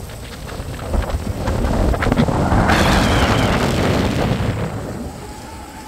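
Wind buffeting the microphone of a rider on a tall swinging-chair ride as the seat sweeps round. It swells to its loudest about three seconds in and eases off near the end.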